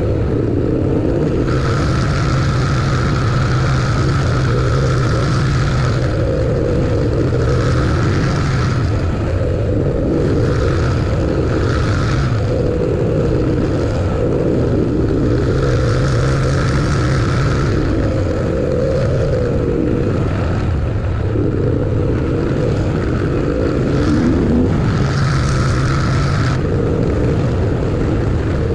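Vehicle driving along a road: steady engine drone with road and tyre noise, a higher hiss swelling and fading every few seconds.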